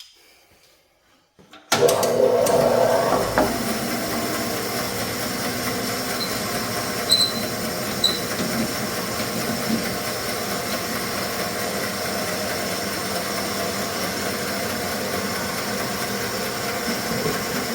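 Bandsaw switched on about two seconds in, then running steadily with a motor hum and blade whir.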